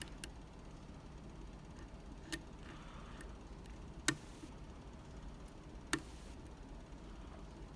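Small sharp clicks of lock picking tools working a Medeco lock, four separate clicks a second or two apart, the loudest about four seconds in.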